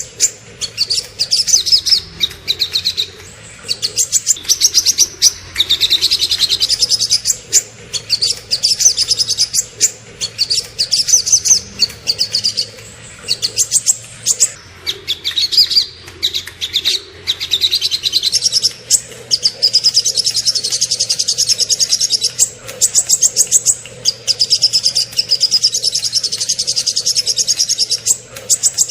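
Small songbirds singing loud, fast, high-pitched trills and rapid-fire note series, in bursts of one to three seconds separated by short breaks.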